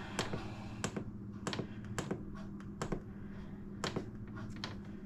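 Fingertip presses on the control-panel buttons of a Ninja dual-zone air fryer, about nine separate clicks at an uneven pace as the cooking time is stepped up to 30 minutes, over a low steady hum.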